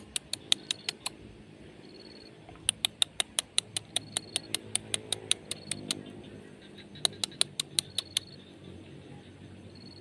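Animal calls: rapid runs of sharp clicks, about six a second, three runs in all with pauses between, over a short high chirp that repeats about once a second.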